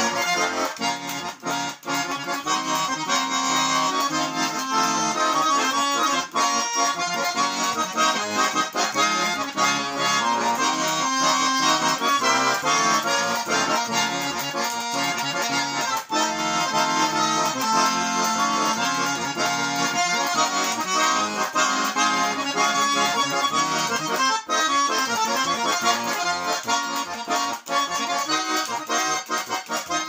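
Russian garmon button accordion (a 'Lyubitelskaya' model) playing a folk tune instrumentally, with continuous melody and accompaniment as the bellows are worked in and out.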